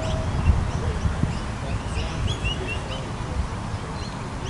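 Small birds chirping in short high notes, a little cluster of chirps about two seconds in, over a steady low rumble.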